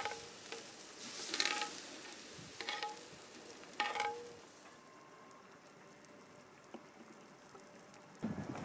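Food sizzling in a pan over a campfire, with three short scrapes of a utensil stirring against the pan in the first four seconds. The sizzle dies down after about five seconds.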